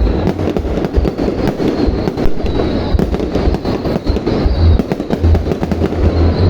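Loud fireworks display: a continuous barrage of rapid bangs over deep, rolling booms.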